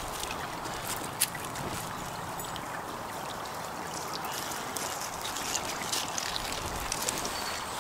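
Small woodland stream flowing steadily, with a few faint clicks and one sharper click about a second in.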